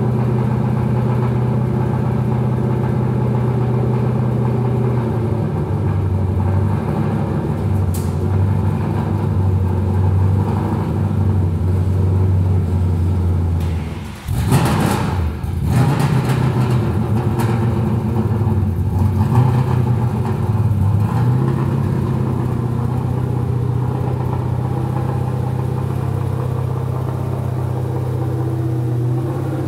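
The Cobra R's V8, running a 5.8-litre Shelby GT500 aluminium block, idling. About halfway through the idle dips suddenly, then runs rougher and less evenly for several seconds before it settles back to a steady idle.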